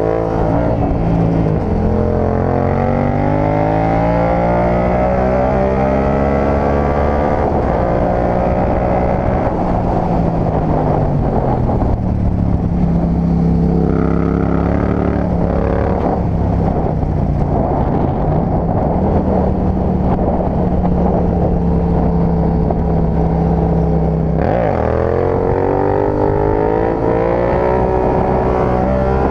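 Yamaha MT-07's parallel-twin engine under way, heard onboard with wind noise. The revs climb and drop twice with gear changes in the first ten seconds, hold steady at cruise for a long stretch, then climb again near the end.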